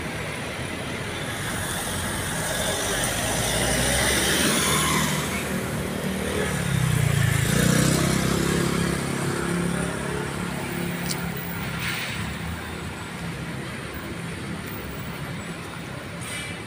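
City street traffic: cars and a van driving past with engine and tyre noise. It swells to a low rumble about halfway through, then eases off.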